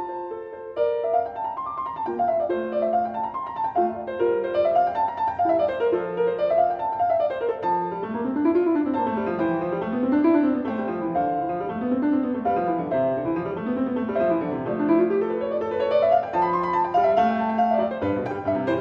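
Background piano music playing flowing arpeggios that run up and down over and over.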